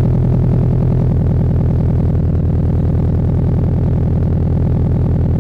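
Scion FR-S's 2.0 L flat-four boxer engine idling steadily just after start-up, its exhaust running through a catless front pipe with no catalytic converters.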